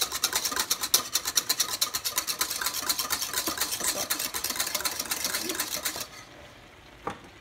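Wire whisk beating eggs in a plastic bowl, fast and rhythmic at about eight strokes a second, the wires scraping and tapping the bowl. The whisking stops about six seconds in, followed by a single light click.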